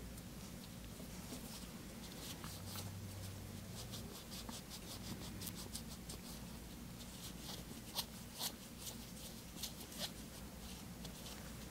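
Faint scratchy rubbing of a dehydrator-soaked nail wipe worked back and forth over and under a fingernail by gloved fingers, in quick irregular strokes, with a few sharper ticks in the second half, over a low steady hum.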